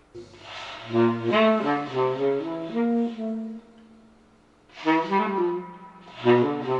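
A saxophone recording playing through AR-3a loudspeakers driven by a Mark Levinson ML-2L amplifier: a melodic phrase, a short pause about three and a half seconds in, then the playing resumes.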